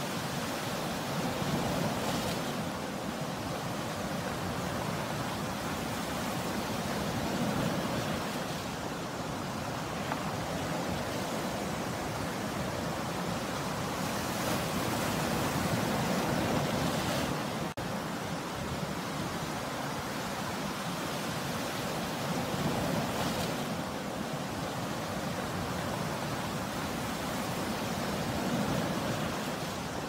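Sea waves breaking and washing up the shore: a steady rushing surf that swells every five to seven seconds as each wave comes in.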